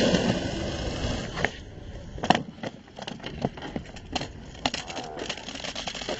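Skateboard wheels rolling on rough concrete, with several sharp clacks of the board on the ground, the loudest about two seconds in.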